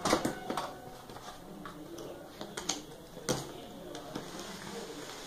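Cardboard laptop box being opened by hand: a few sharp taps and knocks of the cardboard, one at the start and two more around the middle, with scraping and rustling as the lid is lifted and the packing tray slid out.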